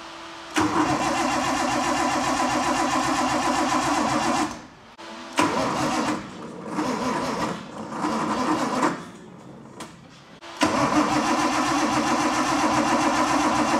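Series 1 Nissan RB25 straight-six being turned over on its starter in three long spells of cranking without firing. The second spell falters and drops out partway, the starter cutting out while cranking; the owner first took this for hydraulic lock and later traced the no-start to a wrongly grounded coil pack harness.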